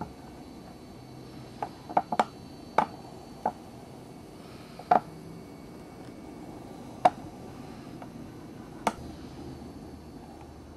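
Steady low hiss with about eight sharp clicks or taps at irregular intervals, bunched in the first half.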